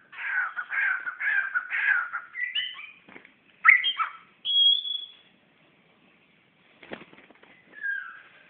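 Murai songbird (magpie-robin-type) giving a run of harsh, rasping calls, then several clear whistled notes, the loudest sharp ones about four seconds in and one high held whistle just after. Near the end a single knock and one short falling note. This is the calling of a bird displaying at its own reflection in a mirror.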